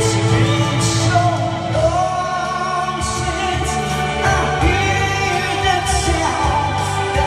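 A man singing a slow song through a handheld microphone over a musical backing track, the melody gliding and held on long notes above steady low accompaniment.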